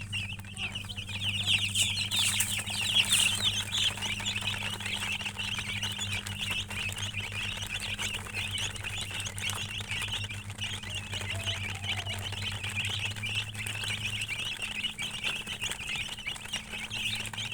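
Many chicks peeping at once: a dense, continuous chorus of high chirps that is busiest a couple of seconds in, with a steady low hum underneath.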